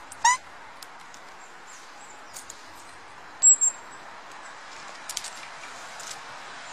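Small wild birds calling at a feeding spot: one short, loud call just after the start, then two sharp high chirps about three and a half seconds in, with a few faint chirps over a steady hiss.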